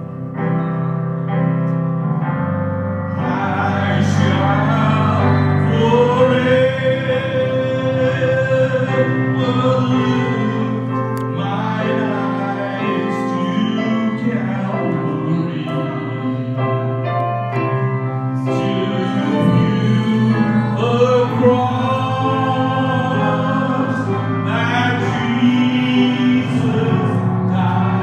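A man singing a slow, sustained melody with vibrato, accompanied by held chords on an electronic keyboard, heard through a sound system during a soundcheck.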